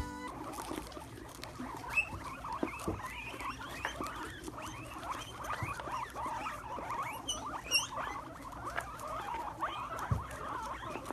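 A herd of guinea pigs squeaking as they feed, many short rising squeaks overlapping, with small crunching clicks from chewing Brussels sprouts. A few seconds of guitar music cut off just at the start.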